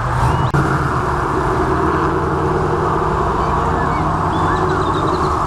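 Steady car traffic noise: a low engine hum under a hiss of tyres on wet pavement.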